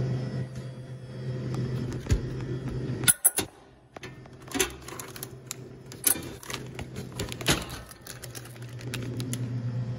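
Clicks and knocks of a Crane / Automatic Products vending machine's delivery-bin flap as a hand pushes through it to take out a snack. The sharpest clicks come about three seconds in. A steady low machine hum runs underneath and drops out briefly around the loudest clicks.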